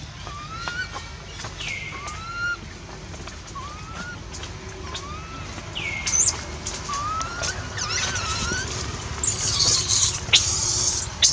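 Monkeys calling: a string of short rising chirps about once a second with a few higher swooping calls, then loud, harsh screeches from about nine seconds in, typical of a young macaque crying in distress.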